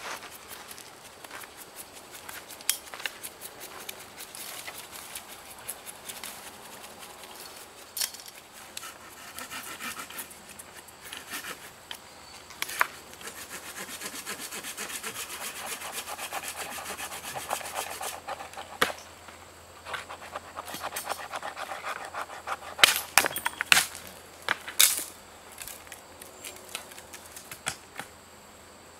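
Knife blade shaving thin curls off a wooden stick to make a feather stick: repeated short scraping strokes with light ticks, denser for a few seconds a little under halfway through. Several sharp cracks come about three-quarters of the way in.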